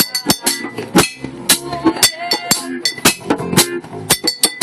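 Bottles struck as hand percussion in a jam session, giving sharp clinking hits about two to three a second, mixed with short pitched notes from other instruments.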